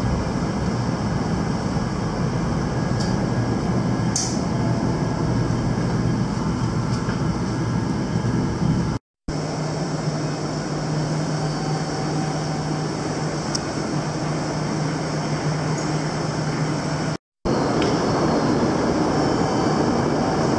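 Steady rumble of a train running, heard from inside the passenger car. After a cut about nine seconds in, a steady hum with a low drone continues, broken by a second short cut near the end.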